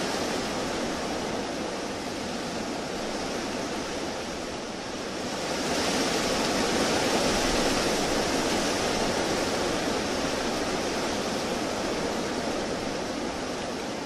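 Strong wind blowing steadily, swelling into a louder gust about six seconds in that then slowly eases.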